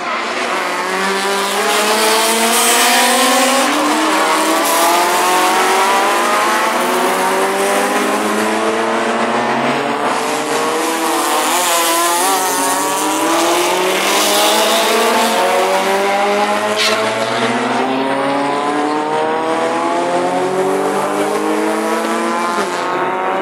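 Racing car engine revving hard on a street course, its pitch climbing and dropping back with each gear change, over and over.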